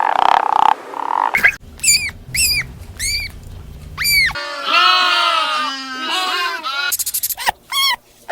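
Farm animal calls: a string of short, high-pitched calls, each rising then falling in pitch, with a longer stretch in the middle where several calls overlap.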